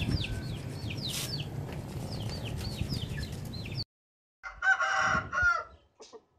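High, quick falling chirps of small birds repeat over a low steady outdoor rumble, then the sound cuts off abruptly. After half a second of silence a rooster crows once, about a second long, the loudest sound here.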